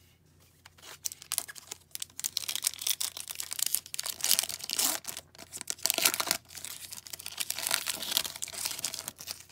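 Foil wrapper of an Upper Deck hockey card pack being torn open and crinkled by hand: a dense crackling rustle that starts about a second in, with a short break about six and a half seconds in.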